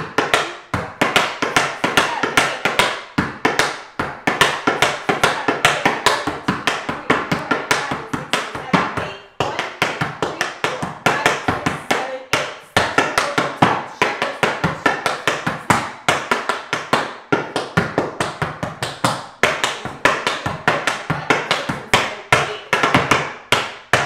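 Tap shoes striking a wooden tap board in quick, rhythmic runs of taps as a tap routine is danced without music, with short breaks about 4 and 9 seconds in.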